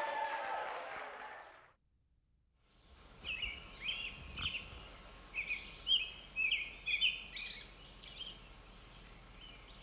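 Songbirds chirping: many short, quick calls between about three and eight seconds in, then only a faint outdoor hush. Before them, in the first two seconds, a murmur of voices fades out into a moment of silence.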